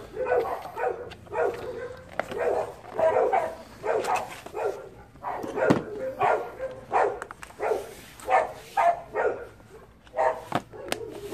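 A dog barking over and over, about two barks a second, with a few sharp clicks in between.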